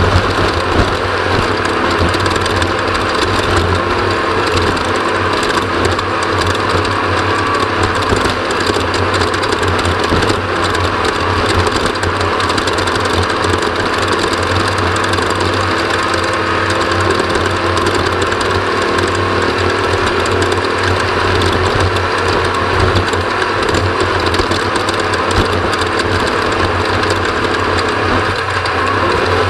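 Off-road race vehicle's engine running loud and steady while under way, with no let-up.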